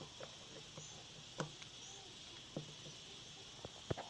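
A few faint, short clicks and taps of small objects being handled over a low steady hiss.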